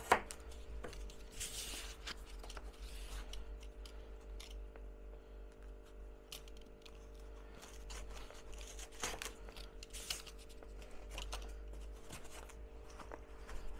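Cardboard being cut and handled: scattered short scraping, crinkling and clicking sounds, with a sharp knock right at the start and a couple of louder scrapes about nine and ten seconds in, over a faint steady hum.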